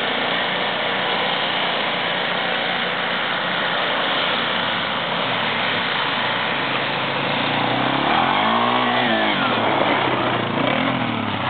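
Small petrol engines running steadily: a snowblower at first, then a sport ATV whose engine revs up and back down about eight seconds in, and once more, less strongly, near the end.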